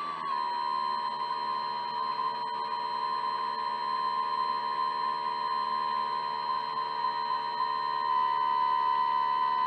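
Electric drive motor of an RC jetfoil model running at a steady throttle, a high whine that dips slightly in pitch at the very start and then holds level.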